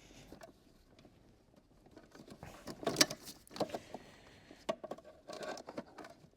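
Faint clicks and rattles of plastic wiring-harness and ECU connectors being worked loose and unplugged, with one sharper click about three seconds in.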